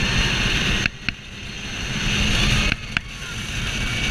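Rushing wind and rolling rumble from a fast-moving car, picked up by a camera mounted on its body. The sound drops out sharply twice, about a second in and just before three seconds, with a short click at each drop.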